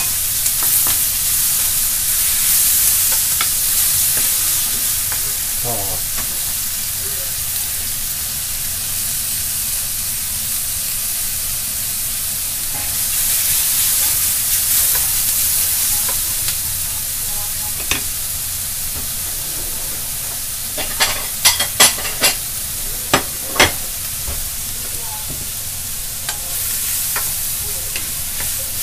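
Sliced onions and mushrooms sizzling in a hot iron wok as a wooden spatula stirs and scrapes them, the sizzle swelling and easing as they are tossed. A little past twenty seconds in comes a quick run of sharp knocks, about seven in a few seconds.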